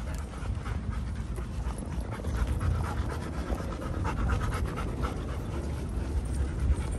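Dogs panting close by, with many light ticks throughout.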